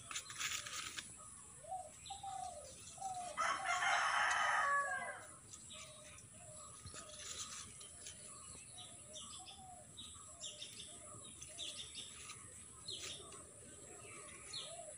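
A rooster crows once, about three and a half seconds in, the loudest sound, falling in pitch at its end. Around it, faint short bird calls repeat about twice a second, with scattered chirps.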